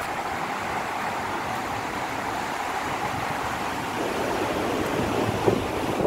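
Steady rushing roar of the Akiu Great Falls and its rapids. Gusty wind buffets the microphone, growing stronger about four seconds in with a few sharp gusts near the end.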